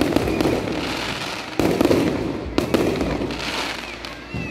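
Aerial fireworks going off: sudden bursts about a second and a half and two and a half seconds in, each followed by a long crackling fizz that fades away.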